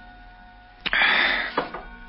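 Soft held music tones underneath a sudden loud rush of noise about a second in, lasting about half a second and fading out, with a click just before it and another just after.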